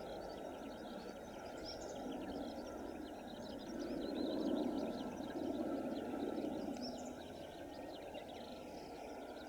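Outdoor ambience: many small birds chirping over a steady low rumble that swells for a few seconds in the middle.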